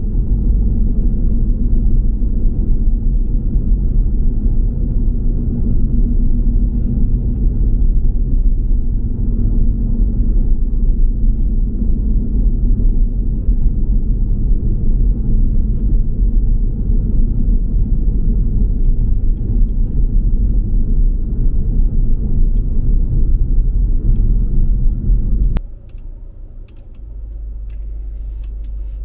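Steady low rumble of a car driving on the road. About 26 seconds in it cuts off suddenly with a click, leaving a quieter steady low hum.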